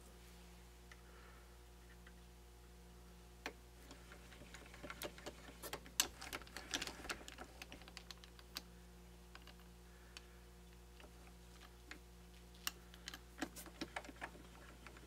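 Light metallic clicks and taps as small steel parts are handled by hand at a stopped metal lathe chuck, in two loose clusters: one in the middle and one near the end. A faint steady hum runs beneath.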